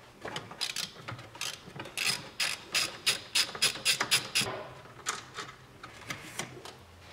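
Socket ratchet clicking in quick runs of strokes while the top 13 mm alternator bolt is backed out; the clicks come thickest and loudest in the middle and thin out near the end.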